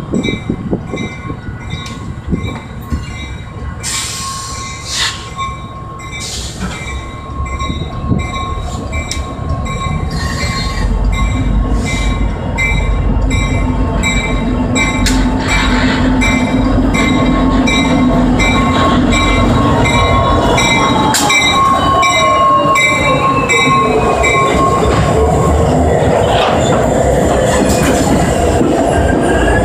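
Union Pacific diesel freight locomotives approach and pass close by, their engine rumble growing steadily louder from about ten seconds in, with a fast, regular ringing going on through most of it. In the last third, the wheels squeal in wavering glides as the locomotives and the first tank cars roll past.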